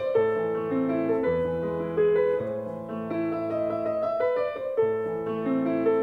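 Intro music on a piano-like keyboard: a melody of held notes over sustained low bass notes.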